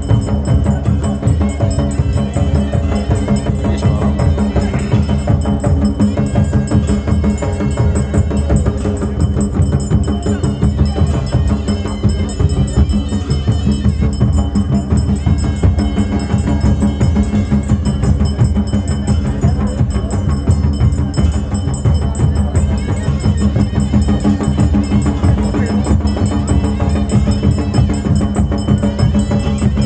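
Traditional temple procession music: drums beaten in a steady, driving rhythm, with large brass karnal horns sounding held notes over them, played by a crowd of musicians in the open.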